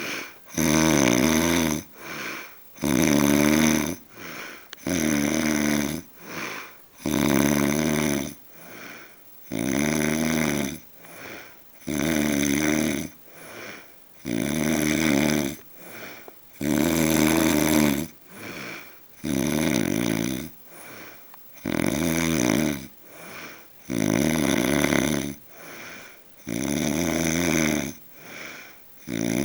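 A man snoring in a steady rhythm, about one loud snore every two seconds, each followed by a shorter, quieter breath.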